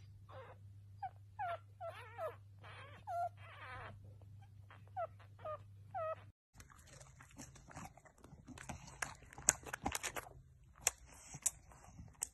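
A dachshund whimpering in a run of short, high whines whose pitch bends up and down. About six seconds in the sound cuts off and gives way to a scatter of sharp clicks and crackles.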